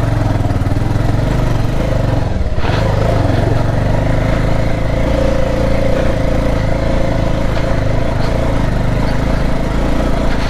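Bajaj Pulsar 220F's single-cylinder engine running steadily as the motorcycle climbs a dirt trail, with a brief drop in engine note about two and a half seconds in.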